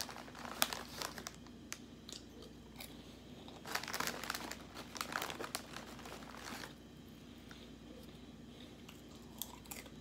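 Close-up eating sounds: chewing a mouthful of food, with crinkling and crunching clicks, a burst in the first second and another about four to five seconds in, then quieter chewing.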